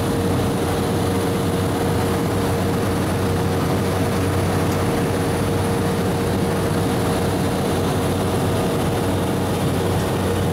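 Steady drone of an aircraft in flight heard from inside the cabin: an even engine hum with a few constant tones over a wash of noise.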